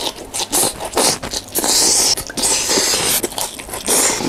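Close-miked eating sounds: rice vermicelli noodles slurped and chewed, with crunching and a spoon scraping the plate, in a string of short bursts.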